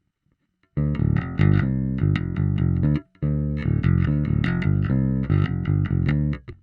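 Electric bass guitar playing a fast riff through a GUMA Drive bass overdrive pedal into an Ampeg SVT-style amp profile, starting under a second in. The riff breaks off briefly about three seconds in, then resumes.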